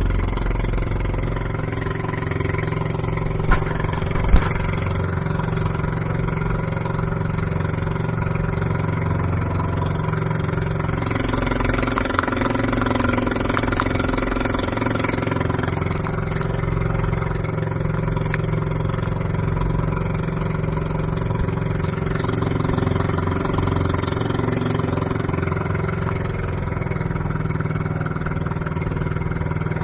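Boat engine running steadily under way, with two sharp knocks about four seconds in.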